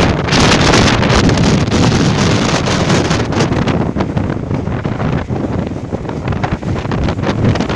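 Wind buffeting the microphone on an open speedboat under way at speed, over the steady rush of the boat's engine and water.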